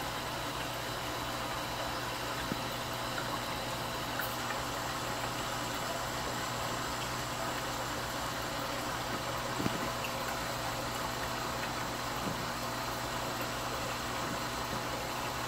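Steady hum and hiss of running aquarium equipment, with one light tick about ten seconds in.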